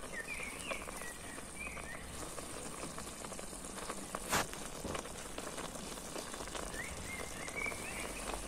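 Chopped tomatoes and green peppers simmering in oil in a stainless steel frying pan: a steady crackle of small bubbling pops, with one sharper snap about four seconds in.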